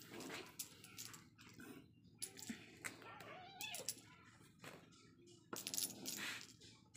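A kitten gives one short, faint meow about three seconds in, among scattered light clicks and rustles from play with a string toy.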